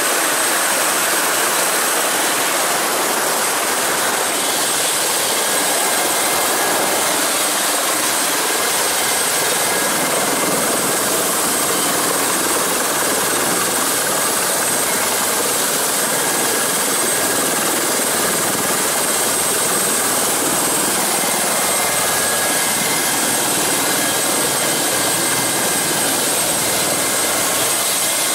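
Helicopter running on the ground with its rotor turning: a steady, loud rush of engine and rotor noise with a thin high whine over it.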